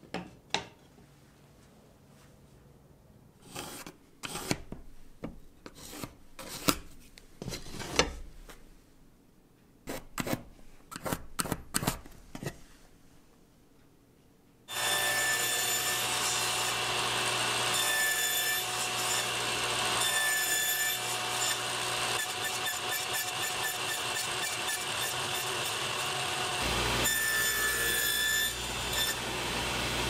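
Thin wooden strips handled and set down on a workbench, making a scatter of light wooden knocks. About halfway through, a table saw starts abruptly and runs steadily while a small wooden piece is pushed through the blade.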